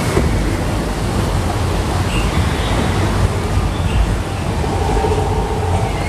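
Steady rush of water in a log flume trough as the log boat drifts along the channel, mixed with wind noise on the microphone.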